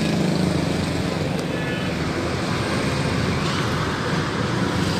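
Steady road traffic noise from motorbikes and cars passing on a busy street. A passing motorbike's engine hum fades out within the first second.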